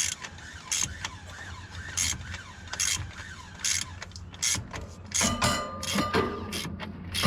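Hand ratchet wrench being worked in repeated strokes, its pawl clicking about once a second and quickening after about five seconds. A steady low hum runs underneath.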